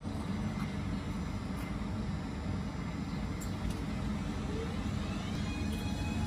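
Renfe Civia series 463 electric multiple unit pulling out of the station: a steady low rumble, with the traction motors' whine rising in pitch from about five seconds in.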